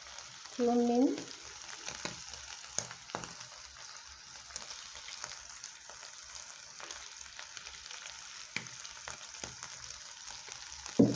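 Beef sizzling steadily as it fries in oil in a pan, with scattered light clicks and a louder knock near the end.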